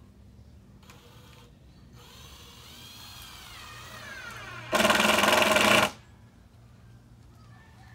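A power tool runs in one loud burst of about a second, a fast mechanical buzz that starts and stops abruptly about two-thirds of the way through. Before it, a fainter sound rises and then falls in pitch.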